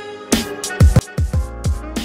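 Background music: held chords give way, about a third of a second in, to a hip-hop beat with deep kick drums that slide down in pitch.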